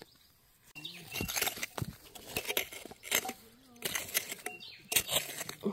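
A small hand digging tool scraping and striking into rocky clay soil, with stones knocking against it. It gives a series of irregular scrapes and knocks starting about a second in.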